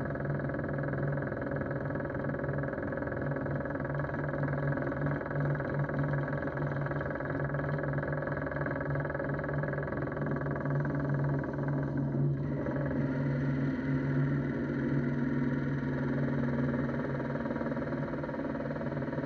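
Drill press motor running steadily with the hole saw spinning free above a plastic safety helmet, not yet cutting. It is a constant mechanical hum, and its tone shifts slightly about twelve seconds in.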